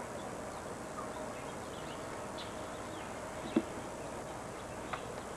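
Quiet outdoor ambience: a faint steady hum over hiss, with a few soft ticks and one short knock about three and a half seconds in.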